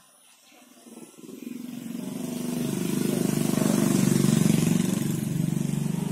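A motor vehicle's engine passing: it grows louder from about a second in, is loudest around four seconds in, then slowly fades.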